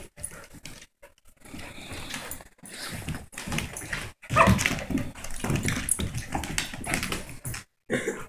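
A Samoyed puppy and a pit bull mix playing together, making dog vocal sounds in short irregular bursts. The sound cuts out completely for a moment a few times.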